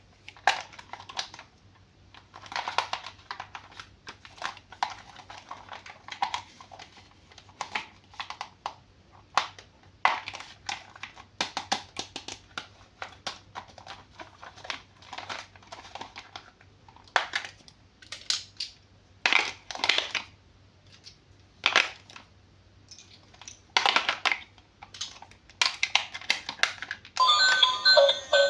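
Plastic toy packaging crinkling and rustling in irregular bursts as it is handled and opened. Near the end an electronic tune with repeated notes starts.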